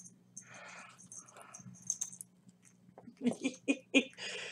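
Cat wrestling a feathery toy inside a cardboard box: soft rustling, then a quick run of knocks and scuffs against the box about three seconds in.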